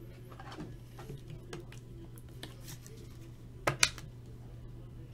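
A hard clear-plastic card frame being handled, with faint light clicks and two sharp plastic clicks close together about three and a half seconds in, over a steady low hum.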